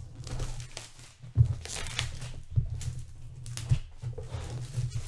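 Plastic shrink wrap being torn and peeled off a board-game box, crinkling and crackling irregularly, with a few dull knocks as the box is handled on the table.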